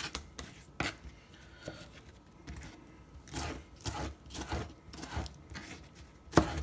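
Chef's knife cutting tomatoes on a plastic cutting board: scattered knife taps on the board, a quicker run of cuts in the middle, and a sharper strike near the end.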